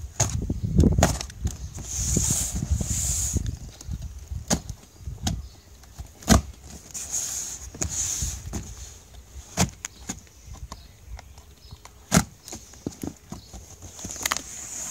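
A cardboard shipping carton being opened by hand: scissors scraping and cutting along the packing tape, with rustling and irregular knocks and taps on the box.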